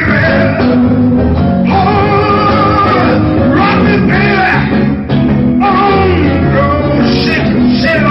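Live blues band: a male singer singing into a microphone over electric guitar accompaniment.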